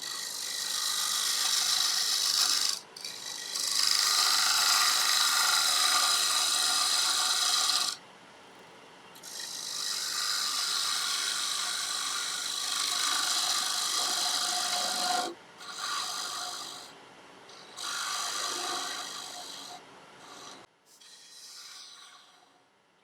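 Bowl gouge cutting the inside of a spinning walnut bowl on a wood lathe: a hissing shear in a series of passes, the first three long with brief breaks, then shorter, fainter strokes that die away near the end.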